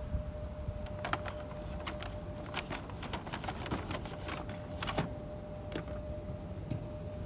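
Stiff paper shopping bag rustling and crackling as a leather tote is drawn out of it: a quick run of crinkles and clicks for a few seconds, then quiet handling.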